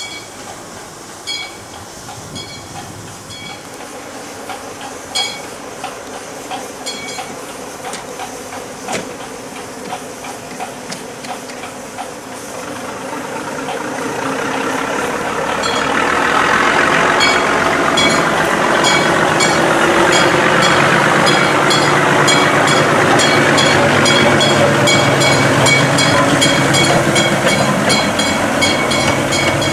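Small four-wheel Babcock & Wilcox diesel-electric shunting locomotive running, growing much louder about halfway through as it draws close and moves past, then staying loud.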